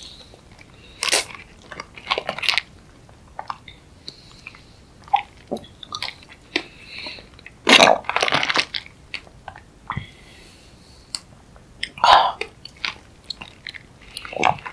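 Close-miked eating sounds: bites and chewing in irregular bursts with short pauses between them, the loudest about eight seconds in and again about twelve seconds in.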